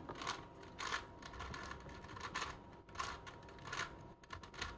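Plastic Crazy 3x3x3 Mercury puzzle cube being turned by hand: a faint, irregular run of quick clicks and clacks as its layers are twisted through a sequence of moves.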